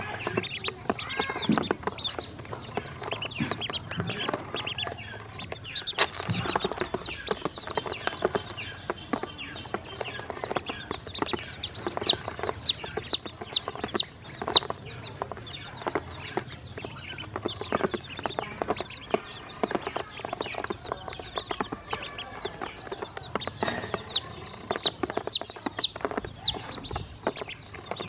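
Young chicks and ducklings pecking feed from a plastic basin, their beaks tapping the plastic in quick, irregular clicks. Two runs of about six high, quick peeps come through, one a little before the middle and one near the end.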